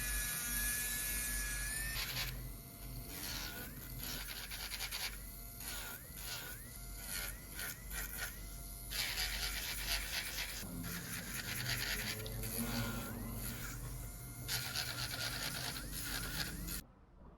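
Electric nail drill (e-file) running with a steady whine, then working the acrylic nails in short, irregular grinding strokes as the bit is pressed on and lifted off; it stops abruptly near the end.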